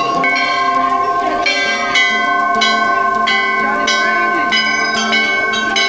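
Hindu temple bells rung over and over, struck several times a second. The long ringing tones of different pitches overlap into a continuous clangour.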